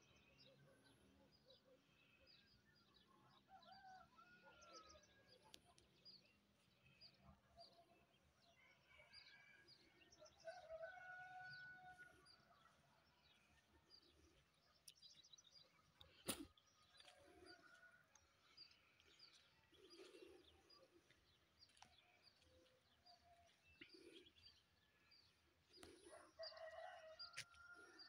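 Faint birdsong, many small birds chirping, with a rooster crowing a couple of times, once about a third of the way in and again near the end. A single sharp click about halfway through.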